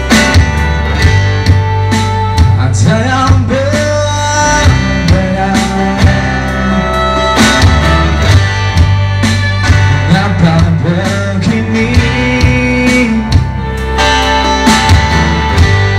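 Live band playing a song: a male singer over electric guitar, steady bass notes and a drum kit.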